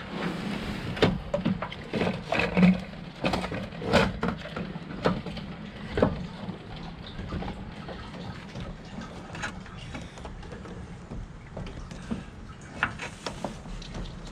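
Irregular knocks, clicks and scrapes of a fuel pump assembly being worked up out of the fuel tank, busiest in the first half and sparser after.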